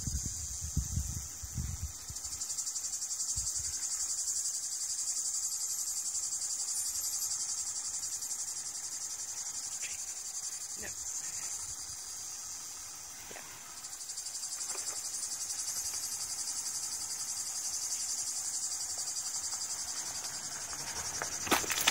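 Steady, high-pitched chorus of insects, dipping briefly a little past halfway and then swelling again. A few faint clicks in between, and sharper clicks near the end.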